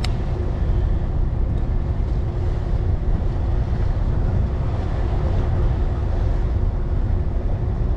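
Wind buffeting the microphone over a steady low hum from a boat engine, with one sharp click right at the start.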